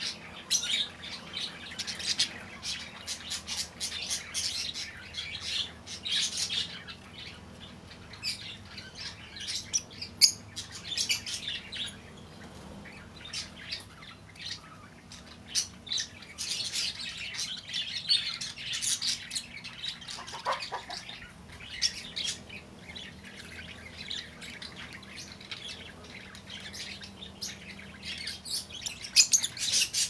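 Rosy-faced lovebirds chattering, a constant run of rapid shrill chirps and squawks with brief pauses.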